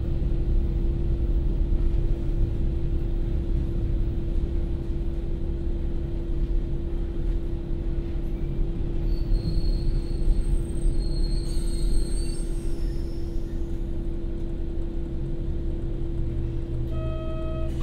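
Interior sound of a JR Kyushu KiHa 40 diesel railcar slowing to a stop, its Komatsu diesel engine idling under a low rumble with a steady hum. A faint high brake squeal comes about halfway through.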